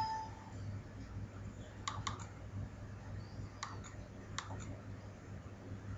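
A few sharp clicks of someone working a computer's keys and mouse: a quick run of three about two seconds in, then single clicks later on. A steady low electrical hum sits under them, and a short electronic beep ends about half a second in.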